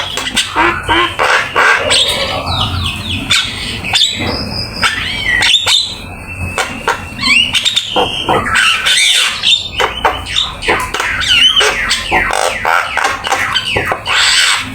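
Javan myna (jalak kebo) singing without pause: a rapid, varied stream of harsh squawks, sharp clicks and rising and falling whistles.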